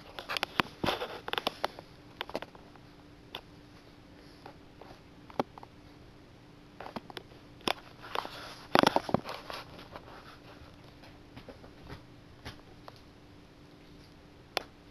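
Irregular scratching and rustling with sharp clicks, in a busy cluster at the start and another about eight to nine seconds in, with single ticks between, over a faint steady hum.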